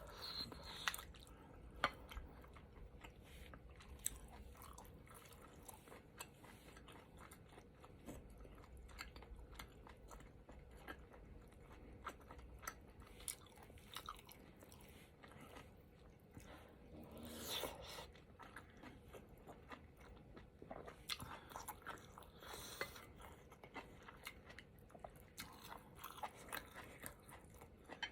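Close-miked chewing: a person eating soup with rice cakes and tofu puffs, many small wet mouth clicks and bites, with a longer, louder eating sound about seventeen seconds in.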